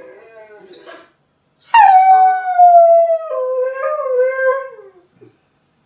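A Bernese Mountain Dog howling: one long, loud howl of about three seconds that starts suddenly, slides down in pitch and breaks lower about halfway through, answering a husky heard from a video.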